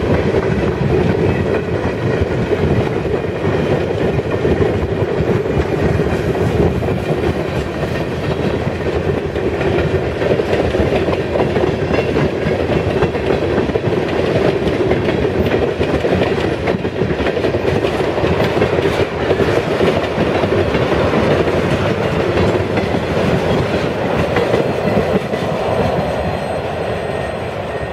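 Freight train's covered hoppers and tank cars rolling past: a steady rumble of steel wheels on the rails with scattered wheel clicks, easing slightly near the end.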